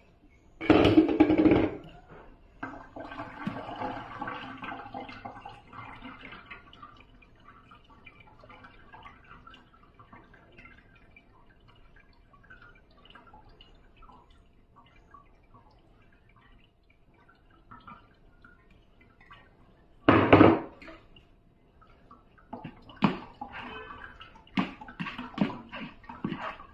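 Kitchen handling sounds of thick wet wheat paste being worked: a steel mixer jar emptied into a terracotta bowl, then a spoon stirring and scraping the paste, with irregular clinks near the end. Two loud brief clatters stand out, about a second in and again about twenty seconds in.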